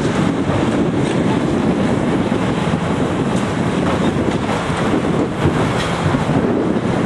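Heavy demolition machinery running steadily, with wind buffeting the microphone.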